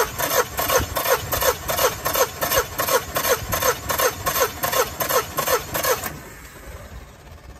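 Yamaha 150 four-stroke outboard turned over by its electric starter with the spark plugs removed for a compression test: an even, rhythmic chugging about three times a second that stops abruptly about six seconds in.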